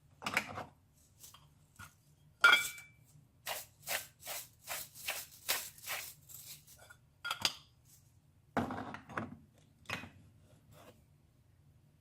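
Kitchen utensils working against cookware: a run of short scrapes and knocks, about three a second in the middle stretch, with a ringing metallic clink about two and a half seconds in.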